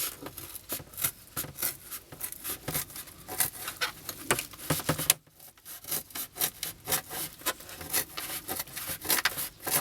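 A sheet of paper-based board being cut with back-and-forth sawing strokes, about three a second, with a brief pause about five seconds in.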